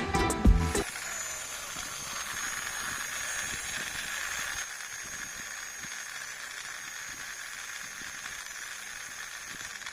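Small DC gear motor, salvaged from a toy RC car, running steadily: a whir with a thin high whine.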